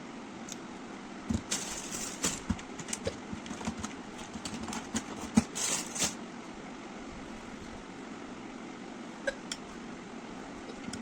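Clicks, knocks and brief rustles of small cosmetic items being handled, busy for the first few seconds and then sparse, over a steady background hum.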